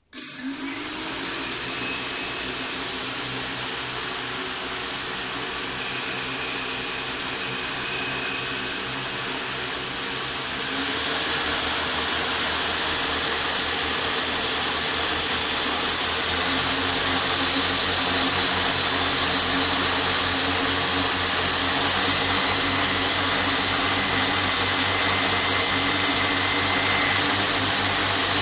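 Quadcopter's four brushless motors spinning their propellers at about half throttle during ESC calibration: a steady whir that starts abruptly and steps up louder about eleven seconds in.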